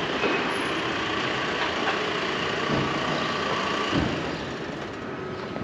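City street ambience: steady traffic noise, with two short knocks about three and four seconds in.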